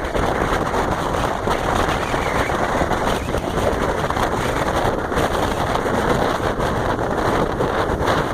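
Gale-force wind buffeting the microphone: a loud, steady rush and rumble of wind noise with no let-up.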